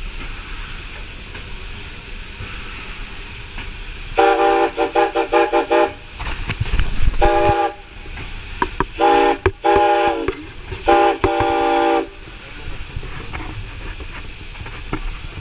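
Steam locomotive whistle blown several times, heard from the cab over the engine's steady hiss of steam. First comes a fluttering blast of about two seconds, then a short toot, then longer blasts in quick succession, the last ending about twelve seconds in.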